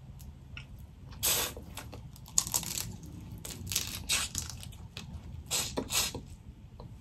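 Boiled crawfish being peeled and eaten by hand: a scatter of short shell crackles and tears, with wet sucking sounds as the meat and sauce are sucked off the fingers.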